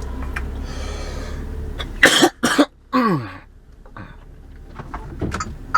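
A man coughs twice, sharply, about two seconds in, then clears his throat with a voiced sound that falls in pitch. A low steady rumble runs underneath at first and drops away when the coughing starts.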